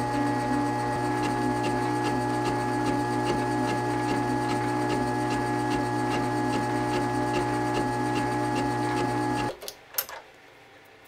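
Benchtop metal lathe running with a steady motor and gear whine, its carbide-insert tool turning a metal workpiece. The whine cuts off abruptly near the end, followed by a couple of sharp clicks.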